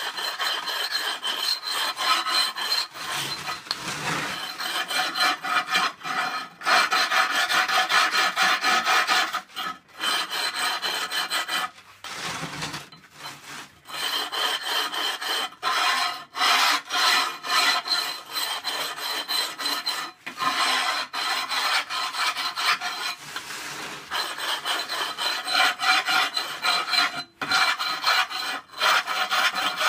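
A hand-held grinding stone scrubbed back and forth over a ceramic kiln shelf, scraping the fired-on crust off in repeated strokes, with a short pause about twelve seconds in.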